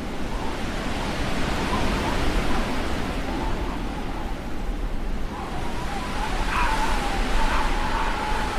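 Blizzard wind blowing in gusts: a dense rushing noise that swells and eases, with a thin whistling tone wavering in pitch that grows stronger and briefly rises in the second half.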